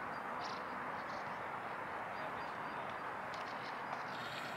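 Steady outdoor background noise, an even hiss-like rumble, with a few faint short sounds from the play on the football pitch.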